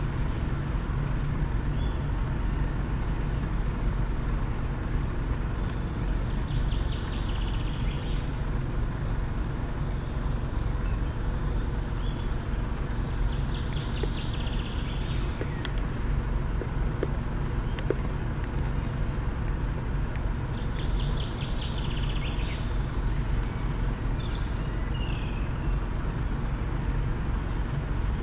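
Several songbirds singing, with short high phrases and trills every few seconds, over a steady low rumble.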